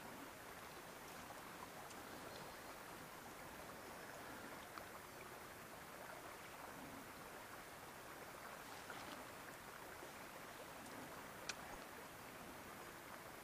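Faint, steady rush of a river's current flowing over shallows, with a few small clicks, the sharpest near the end.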